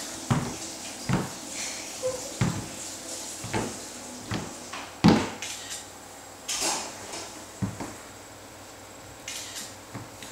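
A toddler's footsteps in oversized adult running shoes knocking on a hardwood floor, uneven steps about one a second, the loudest about five seconds in.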